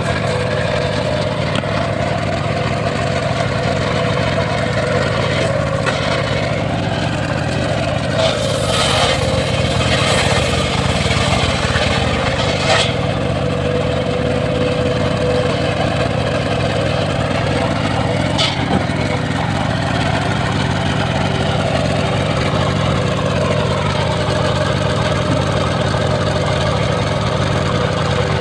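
Engine of a homemade circular sawmill running steadily, its blade cutting through a mahogany log, with the cutting noise swelling loudest for a few seconds around the middle. A few sharp knocks from the log and machine are heard now and then.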